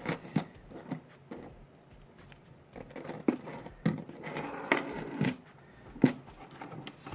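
Scattered sharp metallic clicks and clinks of a Kasp 14040 padlock and lock-picking tools being handled, about eight in all, with quieter handling noise in between.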